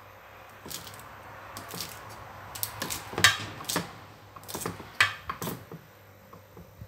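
Kitchen knife chopping Chinese kale on a wooden chopping board: a string of sharp, uneven knocks as the blade strikes the board, loudest a little past the middle.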